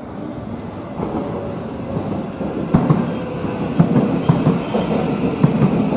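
JR West 223-series electric train pulling into a platform, getting louder as it comes in, with sharp clacks of its wheels over the rail joints from about three seconds in.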